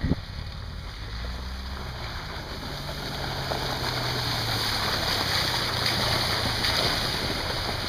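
Off-road buggy's engine running as it drives up the slushy track and passes close by, growing louder to a peak about six seconds in, with a hiss of tyres through wet snow and mud.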